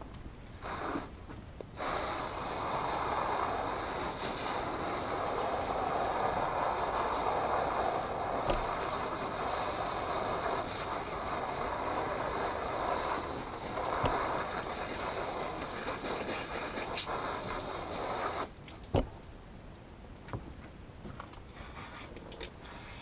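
Garden hose with a pistol-grip spray nozzle spraying water onto a cutting board and a plucked chicken carcass. It is a steady spray that starts about two seconds in and stops abruptly near the end, followed by a single knock.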